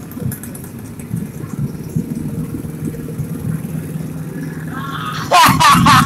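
Motorcycle engines of slow-moving parade floats idling and running in a low, steady rumble. About five seconds in, loud men's voices shout close by.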